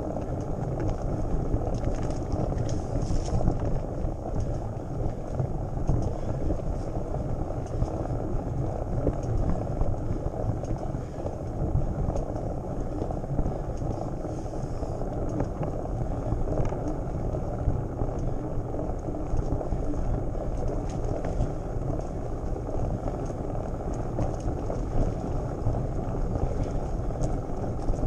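Mountain bike rolling over a dirt track, heard from a handlebar-mounted camera: a steady low rumble of wind on the microphone and tyres on the ground, with occasional faint clicks.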